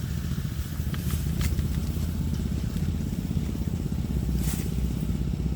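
A small engine running steadily with a low, evenly pulsing drone, with a few faint clicks over it.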